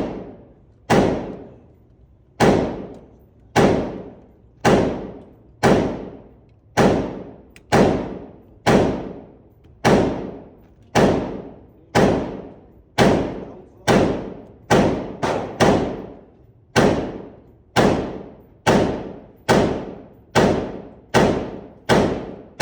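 Gunshots at a shooting range, fired one after another about once a second, each with an echoing tail; they come a little quicker in the second half.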